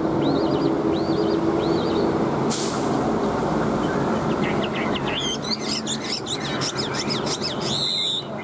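Chinese hwamei singing: a few looping whistled notes in the first two seconds, then a fast, varied run of song from about five seconds in. Under it, a loud steady rumble like passing traffic.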